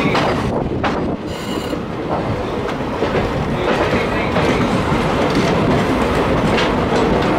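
Indian Railways express passenger coaches rolling past close alongside, their wheels clattering over rail joints over a steady rumble. A brief high squeal comes about a second and a half in.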